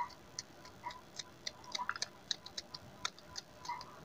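A knife slicing green chillies held in the hand: faint, quick, irregular crisp clicks, several a second.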